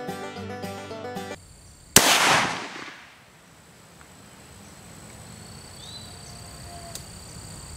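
A single AR-15 rifle shot (.223), one sharp report whose echo dies away over about a second. Quiet outdoor air follows, with a faint chirp and a faint tick near the end.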